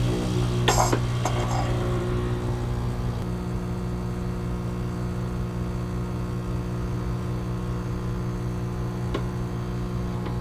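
Steady low electrical-type hum with even overtones, unchanging throughout, with a few light clicks in the first couple of seconds.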